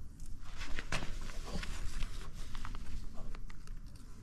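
Masking tape being pulled off its roll and pressed down along a roof tile: irregular crackles, rubbing and light taps of hands on the tile.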